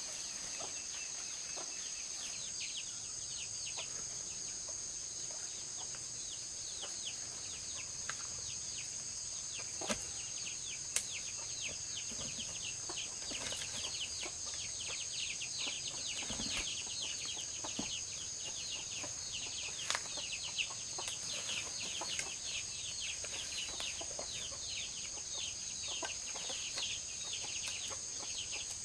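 Poultry calling: a quick run of high, falling peeps that grows denser in the second half, over a steady high-pitched insect drone. A few sharp knocks come about ten and twenty seconds in.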